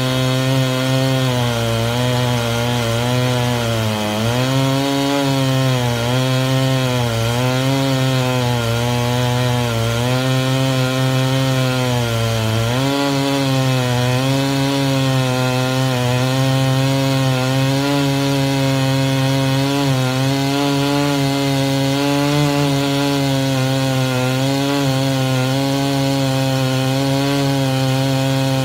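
Large chainsaw with a six-foot bar, mounted in a homemade chainsaw mill, running at full throttle while ripping through a big stump. The engine pitch sags under load about four seconds in and again around twelve seconds, then picks back up and holds steady.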